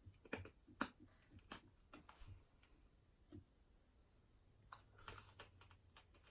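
Faint, scattered keystrokes on a Razer Blade 15 laptop keyboard: single taps spaced irregularly, with a quick run of several near the end.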